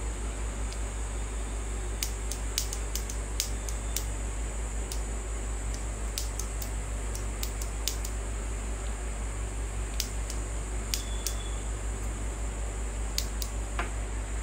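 Luminous Eco Watt inverter humming steadily while powered up, a low mains-frequency hum with a steady high hiss. Scattered light clicks sound throughout, most in the first four seconds and again around ten to eleven seconds in.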